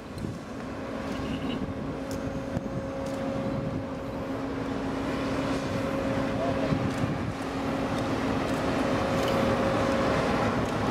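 Steady engine hum from heavy harbour machinery, with a held low drone that grows gradually louder, and wind buffeting the microphone.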